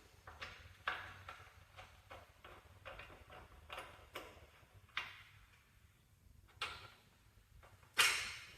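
Parts and bolts being handled while fitting a garden tractor's nose piece: a string of light clicks and taps at uneven spacing, with a louder knock near the end.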